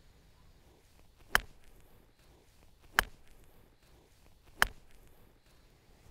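Three sharp clicks, evenly spaced about a second and a half apart and each about as loud as the others, over a faint quiet background.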